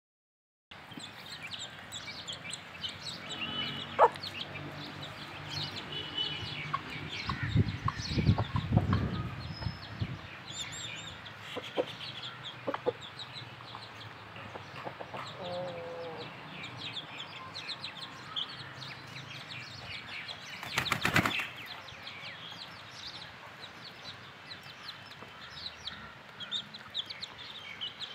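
Aseel chicks peeping continuously in short high chirps, with hens clucking low among them as they feed. A low rumble comes about a third of the way in and a brief loud rustle about three-quarters of the way through.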